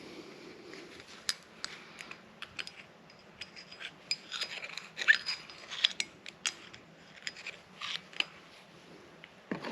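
Scattered small clicks and scrapes of a metal pick worked around inside a Barnes4wd Enduro joint housing, clearing out dry, dirty old grease and bits of rubber.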